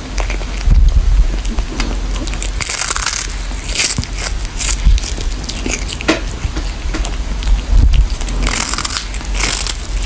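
Cat chewing and crunching on a small whole fish: a run of irregular crisp crunches and bites over a steady low rumble.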